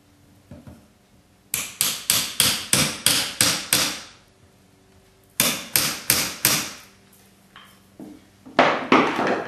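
A hammer taps the top of a steel flat-headed screwdriver wedged between fiber rush strands, packing the strands tight. About ten quick taps come first, then a pause, then a few more, with a couple of louder knocks near the end.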